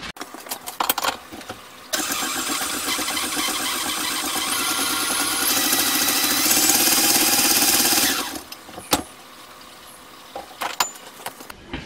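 Electric mixer with beaters running for about six seconds, starting about two seconds in, growing louder and higher-toned partway through, then switching off. A few clicks and knocks come before and after it.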